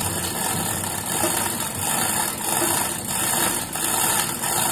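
Steady mechanical running noise, like an engine running, with a dense hiss that holds level throughout.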